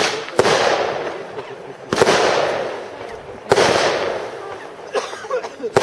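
Compound firework cake firing single shots about every one and a half seconds, each a sharp bang followed by a fading rush of noise.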